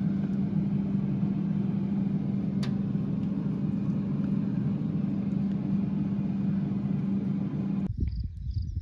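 Freezer running with a steady low hum, and a single click about two and a half seconds in. The hum cuts off suddenly near the end.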